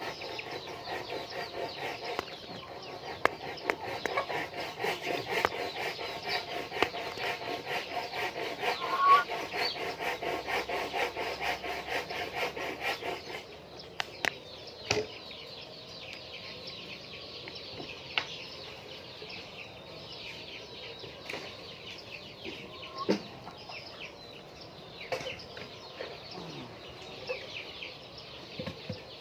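A flock of laying hens clucking and calling. Under them, a dense, fast rasping rhythm runs through the first half and stops about halfway through, leaving the hens with scattered clicks and knocks.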